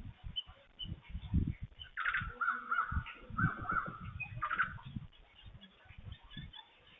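A corvid calling: a run of harsh, repeated caws that starts about two seconds in and lasts nearly three seconds, over scattered low thumps.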